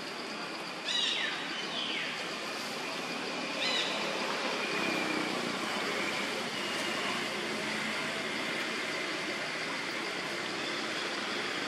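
Steady outdoor background noise with two short, high chirping calls that fall in pitch, about one second and four seconds in.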